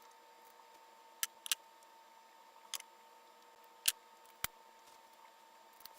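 Plastic pieces of a 4x4x4 puzzle cube clicking as edge pieces are pressed into place during assembly: about six faint, sharp clicks, scattered irregularly.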